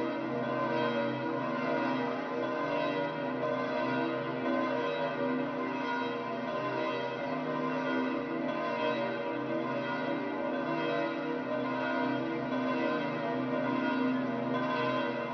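Church bells of St. Peter's Basilica pealing, many bells ringing at once so that their tones overlap and hang on without a break.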